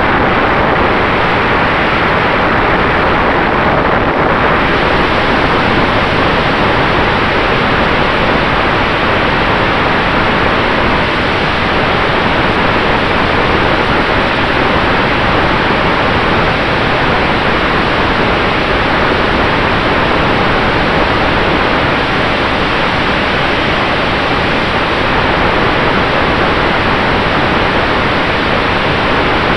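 Steady rush of propeller and airflow noise from a radio-controlled Maule model airplane in flight, picked up by the camera mounted on the plane's nose, with a faint steady motor whine underneath.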